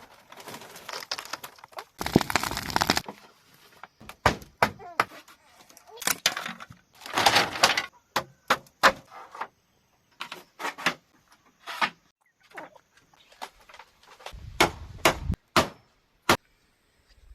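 Bamboo being chopped and split: irregular sharp knocks and cracks, with a few longer rasping stretches.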